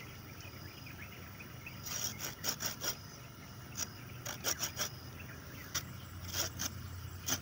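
Folding pruning saw's teeth scraping in short strokes against a cassava stem cutting, lightly scoring the bark. The strokes come in small quick groups of a few at a time.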